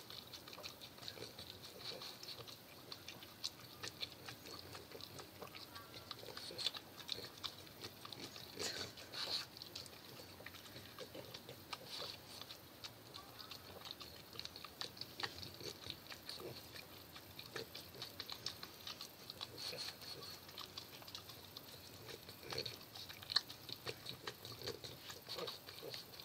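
French bulldog licking and chewing ice cream from a cone: a steady, irregular run of small wet licking and smacking sounds.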